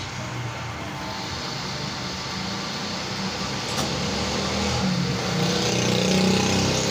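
Wood lathe motor running up to speed with a square timber blank spinning between its centres. The sound builds gradually over the first few seconds into a steady run.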